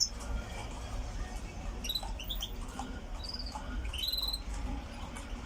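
Small cage birds giving a few short, high chirps from about two seconds in, over a low steady hum.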